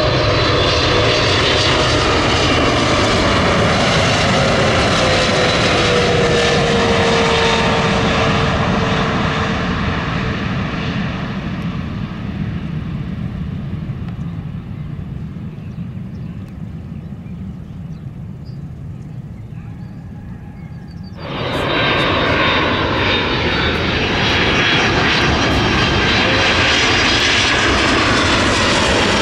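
Jet airliner engines on final approach: a Swiss Boeing 777-300ER passes with a whine that falls in pitch, and its sound fades over the next ten seconds or so. About 21 seconds in, the sound cuts abruptly to a United Boeing 767 on approach, loud again.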